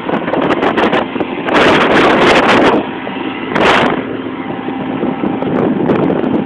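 Boat's Mercury outboard motor running at speed, with wind and rushing water over a steady engine hum. Loud whooshes of spray about one and a half seconds in, lasting about a second, and again briefly near three and a half seconds in.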